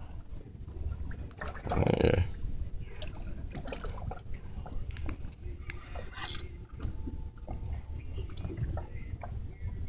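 Heavy fishing reel being worked against a big fish on a bent rod, giving scattered small clicks over a steady low rumble of wind and water. A brief louder noise comes about two seconds in.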